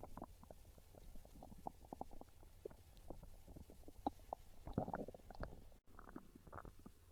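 A hungry human stomach growling and gurgling: a quick, irregular run of short gurgles and pops that grows busier and louder around five seconds in.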